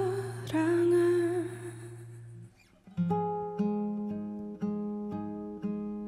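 Live ballad: a wavering sung note held over a sustained guitar chord fades out about a second and a half in. After a brief near-silence, guitar picks a new phrase of plucked chords, a fresh note or chord about every half second.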